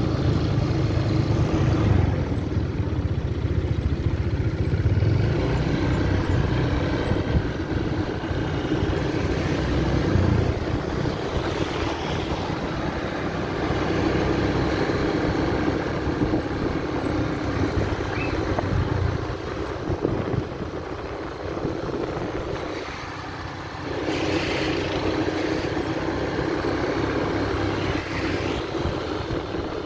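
Motor scooter running as it is ridden along a road, with a steady low rumble. The sound drops quieter for a couple of seconds about three-quarters of the way through, then picks up again.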